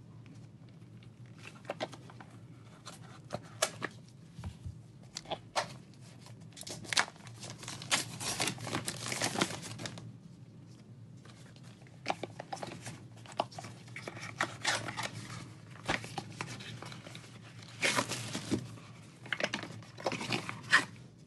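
Clear plastic shrink wrap on a small cardboard box being cut along the edge with a blade and peeled off, crinkling and tearing in irregular bursts with sharp little clicks.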